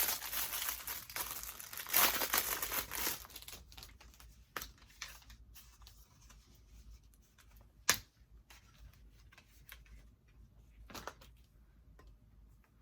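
Crinkling and rustling from handling the sneakers and their packaging, busiest in the first few seconds and then sparser, with one sharp click or knock about eight seconds in.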